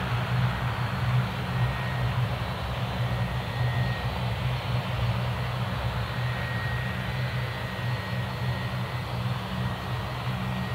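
Airliner engines running at taxi power on the ground, from a Dash 8 turboprop and a Boeing 757-200: a steady low drone with a fluttering edge under a broad rushing noise, and a faint thin whine over it.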